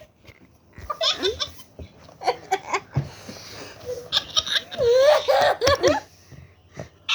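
Kids giggling and laughing in bursts: once about a second in, again around two and a half seconds, and a longer bout from about four to six seconds in.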